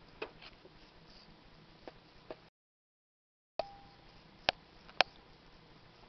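African grey parrot picking at apple pieces on the wire floor grate of her cage: scattered light clicks and taps of beak on the food and grate, then two sharp clicks about half a second apart in the second half. The sound cuts out completely for about a second in the middle.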